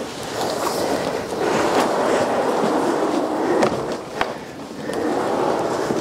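Black plastic tub loaded with hay dragged scraping across a concrete barn floor, with two sharp knocks a little over halfway through.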